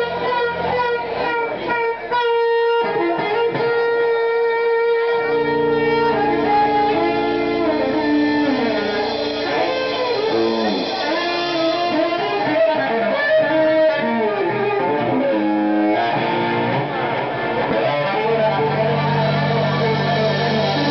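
Live rock band music led by a cello played standing, over electric guitar, with held notes and sliding melodic lines.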